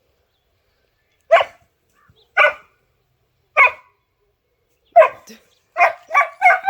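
Dog barking: single sharp barks about a second apart, then three quicker barks near the end.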